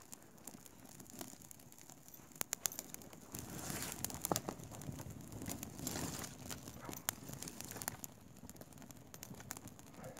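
Dry twig kindling crackling and snapping as a newly lit fire catches, with sharp pops scattered throughout. From about three and a half seconds in there is louder rustling and clatter as dry sticks are laid onto the flames.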